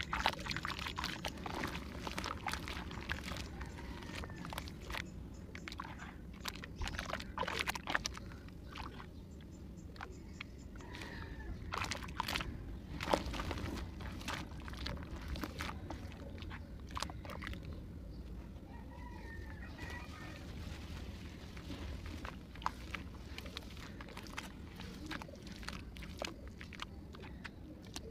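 Soft clay blocks being crumbled and squeezed by hand in a basin of water: wet squelching, sloshing and splashing, with short crackles as the lumps break apart. Chickens call in the background at times.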